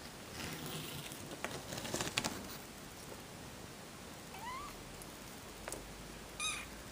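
Kitten mewing: a short, high-pitched rising mew about four and a half seconds in and another brief mew near the end, after some rustling and light knocks.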